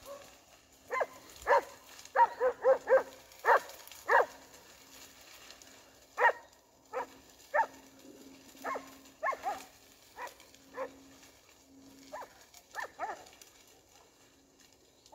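Hunting dog barking in short, irregular barks, sometimes three or four in quick succession, as it holds a wounded fox.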